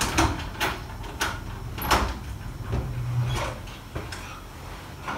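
A few scattered knocks and thumps, the loudest about two seconds in.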